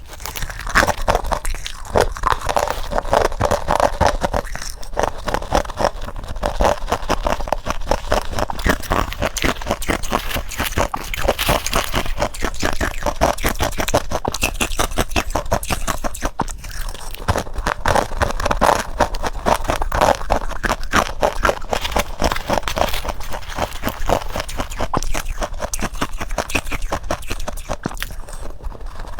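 Freezer frost being bitten and chewed: a dense, continuous run of crisp crunches.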